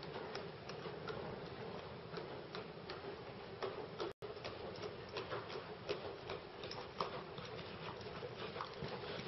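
Horse's hooves on the sand footing of an indoor riding arena at a trot, a run of soft, irregular ticks and thuds over a steady hum. The sound cuts out for an instant about four seconds in.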